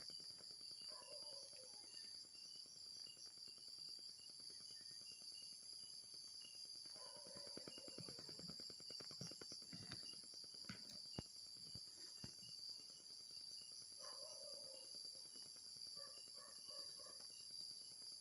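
Night insects such as crickets trilling steadily at a high pitch, faint, with a softer repeated chirp beneath and a few brief faint lower sounds now and then.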